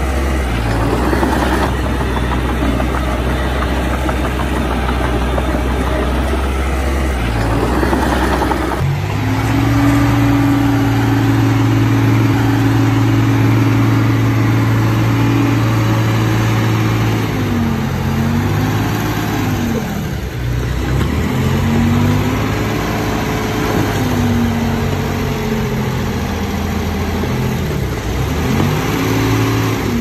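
Heavy diesel earthmoving engine running. It holds a steady drone, changes abruptly about nine seconds in, and later its pitch rises and falls repeatedly as it revs up and down.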